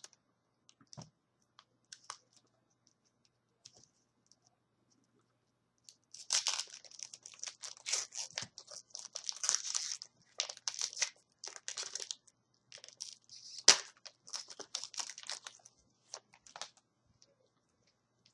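A hockey card pack's foil wrapper being torn open and crinkled: dense rustling and crackling that starts about six seconds in and runs for about ten seconds, with one sharp, loud crackle near the end.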